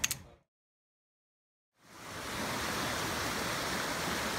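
Steady rush of a shallow rocky stream running over small rapids, fading in after about a second and a half of silence.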